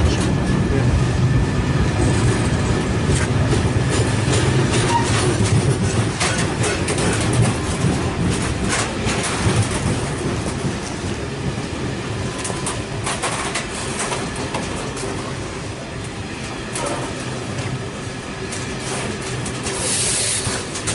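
A long freight train of open box wagons rolling past, its wheels clicking and clattering over the track above a steady rumble. The sound eases a little in the second half.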